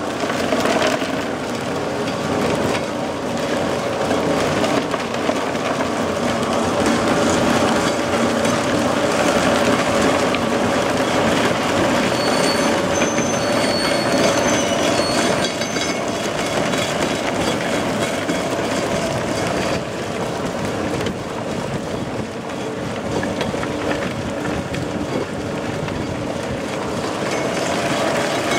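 Belt-driven pecan shelling machine running: a continuous dense clatter of nuts and shells rattling through it over a steady hum.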